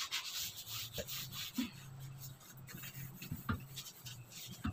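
Scouring sponge scrubbing the greasy, degreaser-sprayed underside of a kitchen range hood: a quick run of short, rough rubbing strokes, with a faint steady low hum behind them.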